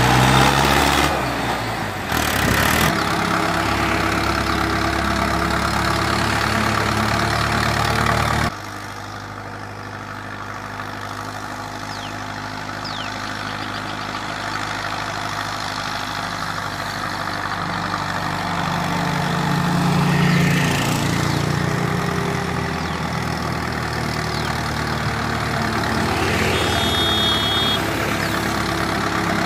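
Diesel tractor engines under heavy load, hauling sugarcane trolleys. First the Mahindra Arjun 605 DI runs loud and close for about eight seconds, then cuts off abruptly. After that, a Hindustan 80 hp tractor's engine is heard from farther off, growing gradually louder as it approaches.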